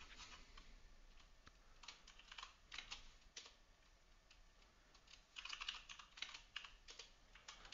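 Faint typing on a computer keyboard: two short runs of keystrokes with a pause of about two seconds between them.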